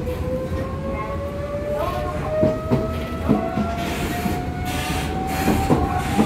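Running sound inside the Nishitetsu 600 series motor car Mo 602: the traction motor whine rises steadily in pitch as the train accelerates, over a low rumble. Several sharp wheel clicks over rail joints come in the second half.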